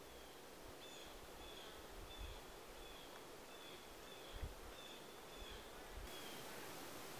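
Faint outdoor nature ambience: a soft steady hiss with a short high chirp repeated about every half second, and one soft low thump a little past the middle.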